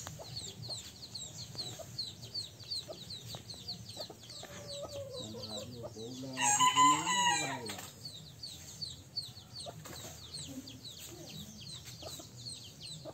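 A rooster crows once, loud, about six seconds in, its call rising and then falling over about a second and a half. Throughout, short high chirps repeat steadily, about two a second.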